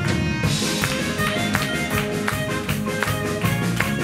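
Live band music with a steady beat: drum kit, electric bass and guitar, and saxophone, with a cymbal crash about half a second in.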